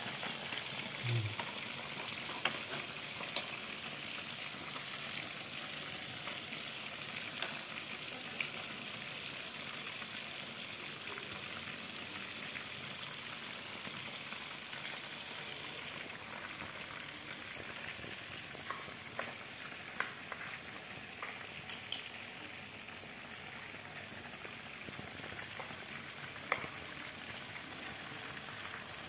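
Breaded chicken pieces deep-frying in hot oil: a steady sizzle with scattered sharp pops.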